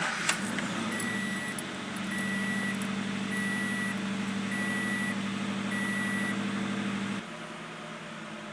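Scion FR-S's 2.0-litre flat-four boxer engine running steadily just after a cold start on its stock air intake, with five short high beeps about once a second. About seven seconds in the engine sound drops abruptly to a quieter hum.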